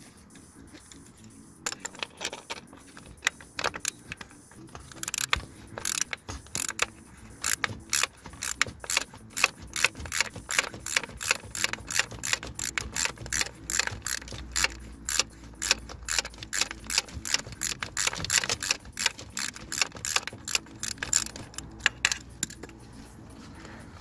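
Ratchet wrench clicking in quick bursts as it turns the retaining bolt of a Ford Fiesta's crankshaft position sensor. The clicking starts about a second and a half in and stops about two seconds before the end.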